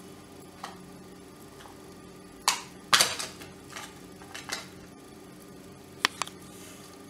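Plastic clicks and cracks as the front and back covers of an Orpat HHB-187E hand blender's housing are pulled apart. The loudest crack comes about three seconds in with a short rattle after it, and two sharp clicks follow near the end.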